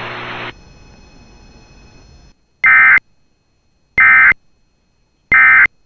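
Emergency Alert System end-of-message data bursts: three identical short warbling digital tones about 1.3 s apart, each about a third of a second, marking the end of the alert. Before them, a brief broadcast hiss and hum cuts off about half a second in.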